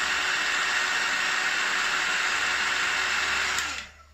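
Handheld craft heat gun running with a steady blowing hiss and a faint whine, aimed at a small cured resin piece, then switched off about three and a half seconds in.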